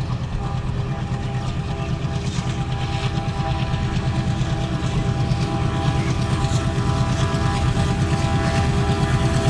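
Diesel locomotive engine working hard as it hauls a passenger train away from a halt, a deep throbbing drone with steady tones over it, growing gradually louder. The thick black exhaust marks the engine under heavy load while accelerating.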